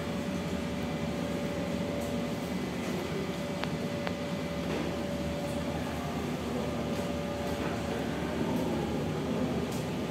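Steady hum and hiss of room noise, like a running fan, with a faint steady tone that fades out near the end and two light ticks about four seconds in.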